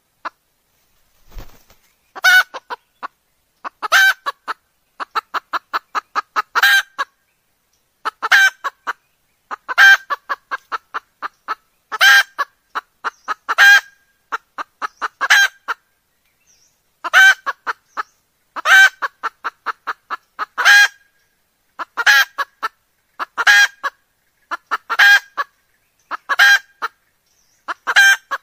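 Red junglefowl hen calling: bouts of rapid clucks, each with one louder call, repeating about every one and a half seconds, played as a lure call.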